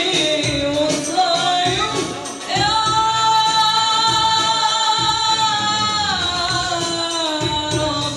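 A woman singing into a handheld microphone, her melody wavering at first, then holding one long note from about two and a half seconds in until about six seconds.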